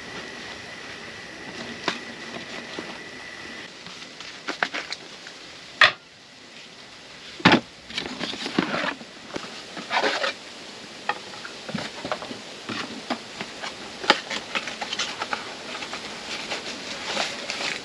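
Irregular clicks and knocks of things being handled, with two louder knocks about six and seven and a half seconds in. A thin, steady high tone sounds through the first few seconds.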